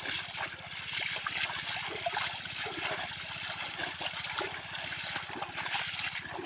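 Shallow river water splashing and trickling, with many small irregular splashes, as someone wades and gropes for fish by hand.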